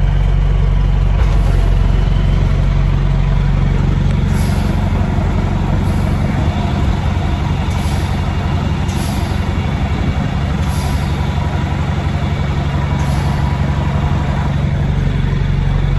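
Truck engine running steadily, heard from inside the cab as a deep, even drone.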